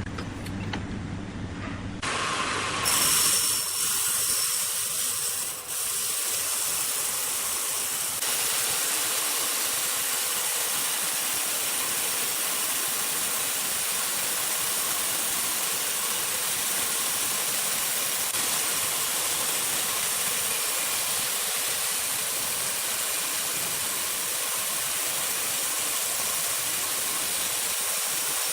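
A steady, even hiss with little low end, after a couple of abrupt changes in the sound in the first three seconds.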